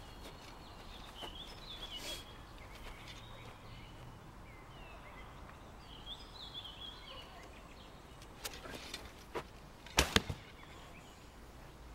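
A 60-pound traditional horsebow loosing a flu-flu arrow: a sharp double crack of the string about ten seconds in, with a few lighter clicks just before. Birds chirp faintly throughout.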